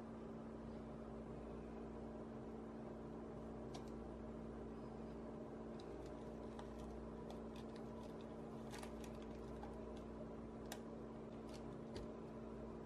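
Small clicks and soft scrapes of a rubber spatula working thick matcha meringue batter against a glass bowl and into a paper-lined loaf pan, scattered from about four seconds in, over a steady low hum.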